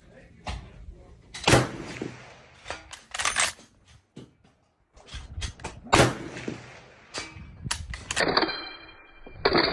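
Bolt-action rifle fired from a bench rest: two sharp reports, about a second and a half in and again about six seconds in, with quieter metallic clacks between them, and a high ringing near the end.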